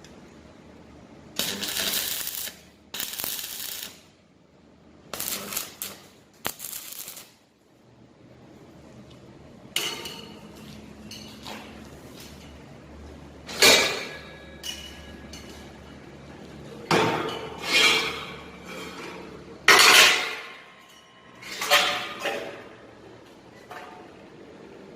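Steel pieces clanking and scraping against each other as they are handled, about eight separate bursts, some leaving a short metallic ring.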